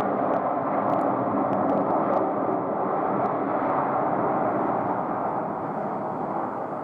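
Jet engine noise from a Delta Airbus A330, a steady broad rumble that slowly fades.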